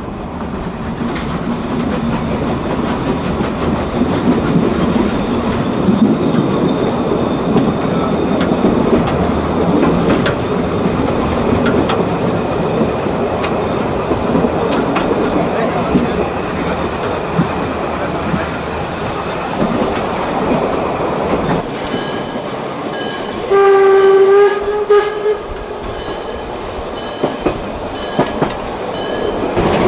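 Narrow-gauge Weißeritztalbahn steam train running steadily, with wheel-on-rail rumble and clatter. Near the end the locomotive whistle sounds once for about a second and a half, a single clear note that lifts slightly as it stops.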